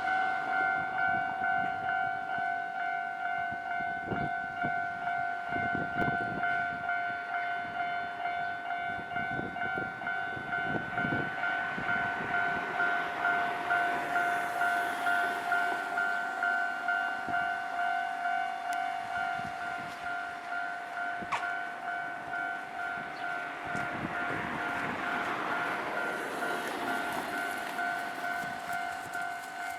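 Japanese electronic level-crossing bell ringing in a steady, rapid repeating ding. The noise of a passing train swells in the middle and again near the end.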